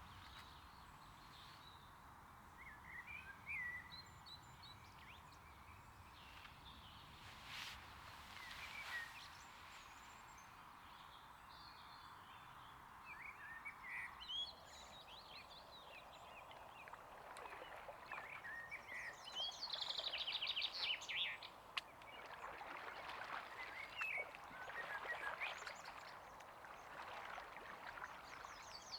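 Wild birds singing and calling, with scattered short chirps and a rapid trill about two-thirds of the way through, over a steady outdoor hiss.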